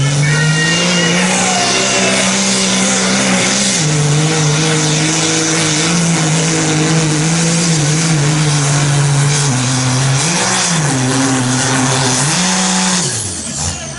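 Dodge Ram pickup's Cummins diesel at full throttle, pulling a weight-transfer sled under heavy load, running in the 2.6-inch-turbo class. Its revs climb at the start and ease once about four seconds in. They surge twice near the end, then fall away as the pull ends.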